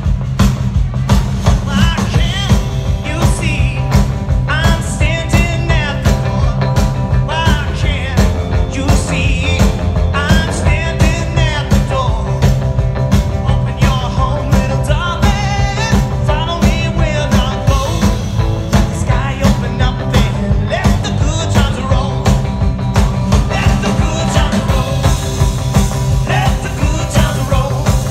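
Rock and roll band playing live: electric guitars, a steady drum beat and heavy bass, with a man singing lead over it.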